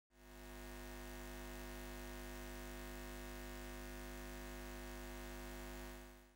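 Steady electrical hum: a low drone with many even overtones, faint, fading in at the start and fading out near the end.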